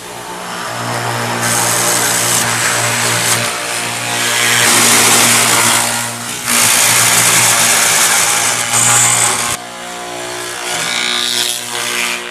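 Woodworking machinery in a wooden cable drum factory running loudly. A steady motor hum sits under long stretches of loud machining noise that break off and start again abruptly about three, six and nine and a half seconds in.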